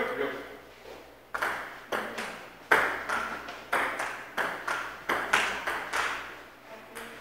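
Table tennis rally: a celluloid ball clicking off paddles and bouncing on the table in quick alternation, about two sharp hits a second starting about a second in, each ringing briefly in the large hall.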